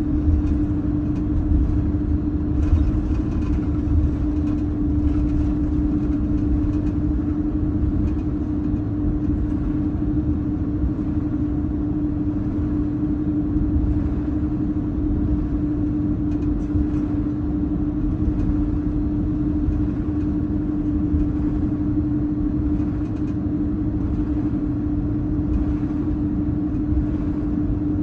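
Cabin noise inside an Airbus A330-200 with its General Electric CF6-80E1 turbofans running: a steady low rumble with a strong constant hum.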